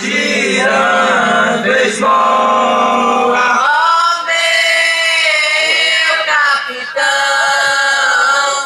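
Amplified quadrilha junina song: male and choral voices singing long held notes in drawn-out phrases.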